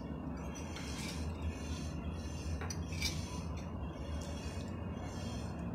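Fork and knife scraping and clicking against a ceramic plate as food is cut and eaten, a few light clinks over a steady low hum.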